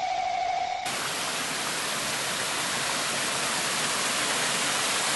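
Shallow river water pouring over a rock lip into a round eroded pothole, a steady even rushing. A short steady tone with hiss sounds in the first second, before the rushing begins.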